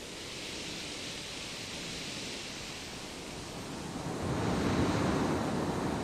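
Sea surf washing against a rocky shore: a steady rushing noise that swells about four seconds in.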